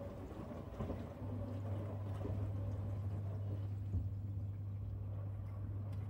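Miele G7310 SC dishwasher running at the start of its Auto programme, water rushing and splashing inside the tub. A steady low hum sets in about a second in and holds.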